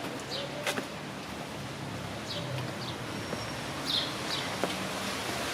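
Steady hiss of falling rain, with a bird giving several short, high chirps that sweep downward.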